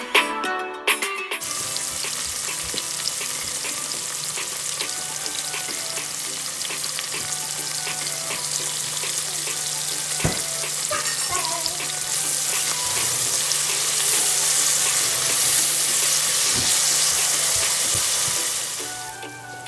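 Chopped onions sizzling in hot oil in a metal pot, a steady frying hiss that grows louder about twelve seconds in and dies down near the end. Background music plays for the first second or so before the frying takes over.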